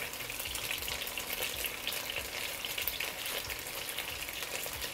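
Cornflour-coated chicken thigh pieces shallow-frying in oil in a pan over medium heat: a steady sizzle with fine crackles.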